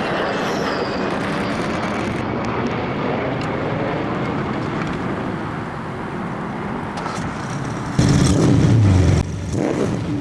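2008 Toyota Yaris engine running with an exhaust leak at a damaged manifold flange, a steady loud rushing rasp. About eight seconds in it turns suddenly louder for about a second, with a low note that falls back, like a blip of the throttle.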